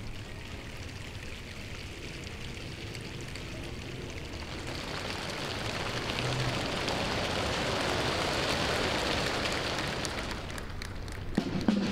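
A large crowd of pupils making a hissing, rustling noise that swells over several seconds and then fades, with a few sharp claps or snaps near the end.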